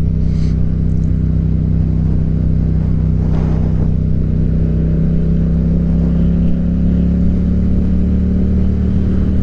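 Motorcycle engine running steadily at an even pitch while riding, with road and wind noise, and no change in speed.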